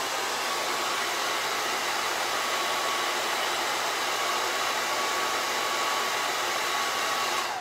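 Handheld hair dryer blowing steadily on a wet painted wooden sign to dry the paint, with a faint steady motor whine. It is switched off near the end and the whine falls away as the motor spins down.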